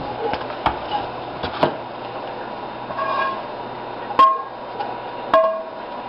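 Spatula scraping and knocking against a frying pan as scrambled eggs are served out, with several sharp knocks, a few of them followed by a short metallic ring.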